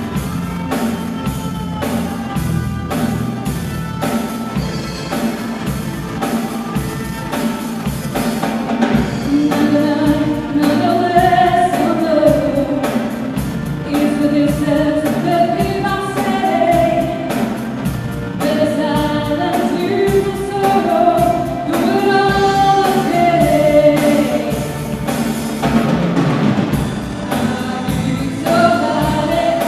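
Live band playing a song, with electric guitar, keyboard and drum kit keeping a steady beat. A young woman's lead vocal comes in about nine seconds in and carries the melody from there.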